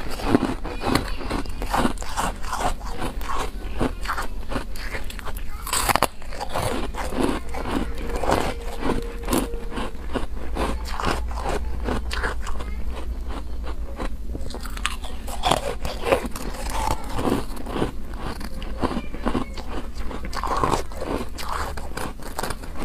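Close-miked biting and chewing of frozen foam ice: a steady run of crisp crunches, several a second.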